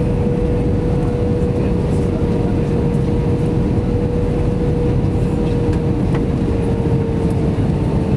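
Airbus A320 cabin noise in flight on descent: a loud, even rush of engine and airflow noise with a steady hum held at one pitch.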